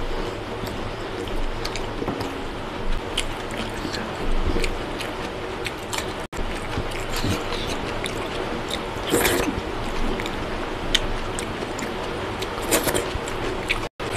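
Close-up eating sounds: chewing and mouth clicks while fingers squish and scoop biryani rice on a steel plate, with scattered short clicks. Broken twice by a sudden brief gap in the sound.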